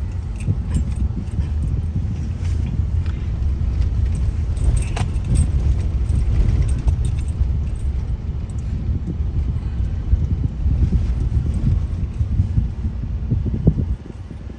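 Road and engine noise of a moving car heard from inside: a steady low rumble with light rattling and clicking over it. The rumble drops off suddenly near the end.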